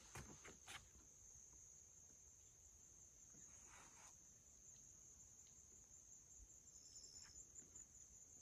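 Faint, steady high-pitched insect trilling, like crickets, in otherwise near-silent woods. There are a few light clicks in the first second.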